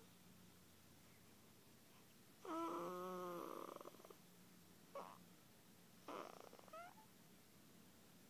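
A sleeping baby snoring: a long snore with a clear pitch that rises and then falls, a short one about five seconds in, and another near the end whose pitch climbs.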